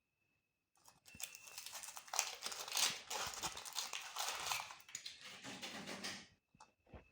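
Meat grinder crushing whole eggs, the shells crunching and crackling in a dense run of clicks for about five seconds, then a few last cracks.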